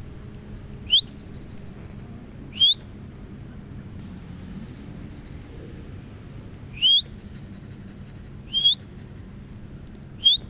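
A songbird calling: five short, clear whistled notes, each rising sharply in pitch, repeated every one and a half to four seconds.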